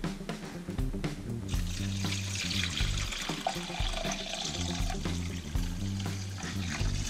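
Water poured from a jug into the metal tank of an ultrasonic cleaner, splashing and foaming, starting about a second and a half in, over background music.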